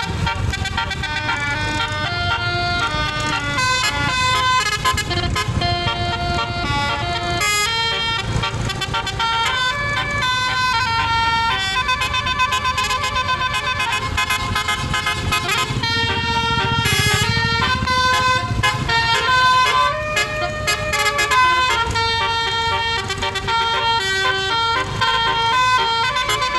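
Basuri bus horn, a set of electric air-horn trumpets, playing a tune of quick changing notes, several tones at once, over a low rumble.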